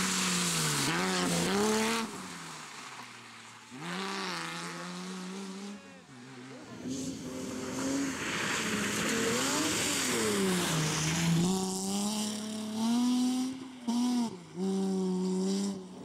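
BMW E30 3 Series rally cars' engines under hard acceleration, the note climbing through the revs and dropping sharply at each gear change or lift. The sound breaks off abruptly twice as one car's pass gives way to another's.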